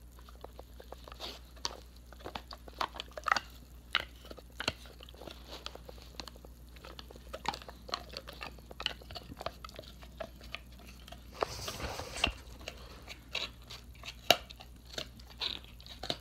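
A Doberman chewing and nibbling close to the microphone: irregular sharp clicks and snaps of its teeth throughout, with a brief whoosh of noise about twelve seconds in.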